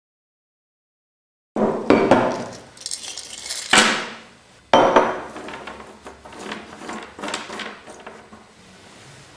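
Small spindle-shaped pieces of solidified lead tipped out of a glass beaker onto a cloth, clattering and clinking against the glass and each other. It starts suddenly about a second and a half in, with two more loud clatters around four and five seconds, then lighter scattered clicks as the pieces are moved about.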